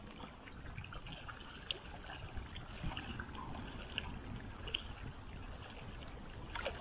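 Small waves lapping and splashing against shoreline rocks, with faint scattered splashes over a low rumble of wind on the microphone.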